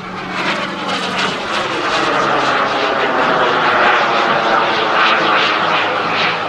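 Turbine engines of a radio-controlled A-10 Warthog model jet flying overhead, a loud steady jet roar that falls in pitch during the first second and a half as the model passes.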